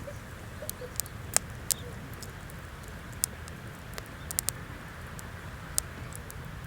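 Small wood fire crackling in a fire grill: irregular sharp pops and snaps over a steady low rumble, the loudest pop about a second and a half in and a quick cluster of them past the middle.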